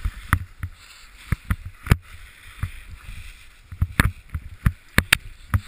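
Skis sliding and scraping over groomed snow on a downhill run, with irregular sharp clicks and knocks several times a second.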